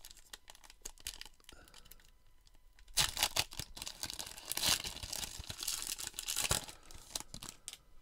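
Plastic wrapper of a 2021 Topps Gallery baseball card pack crinkling and being torn open. It is loudest from about three seconds in until past six seconds, with lighter crinkles and rustles before and after.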